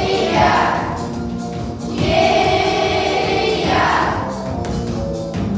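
Children's class choir singing long held notes over instrumental accompaniment, in two drawn-out phrases, the second starting about two seconds in.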